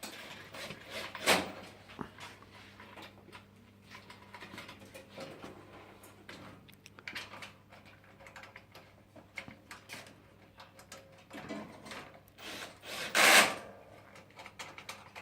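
Workshop handling noise from AV rack assembly: scattered clicks and knocks of parts being handled, with two louder clattering noises, one about a second in and a longer one near the end, over a faint steady hum.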